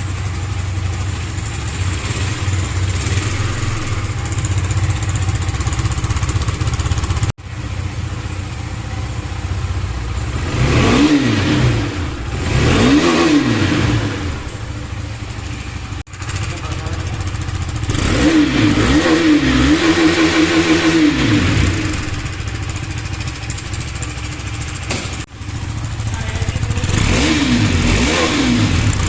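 An engine running and being revved, its pitch rising and falling several times. The sound breaks off abruptly three times.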